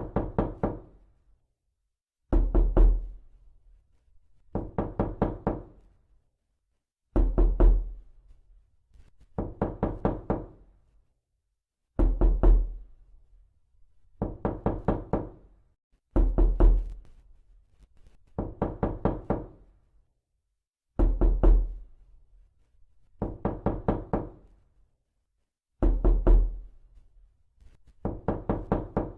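Knocking repeated in quick bursts of several raps each, a burst roughly every two and a half seconds with silence between. The first rap of many bursts lands as a heavy, deep thud.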